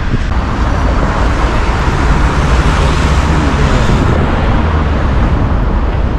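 City street traffic: a steady rumble of road vehicles, with one passing close and loud between about two and four seconds in.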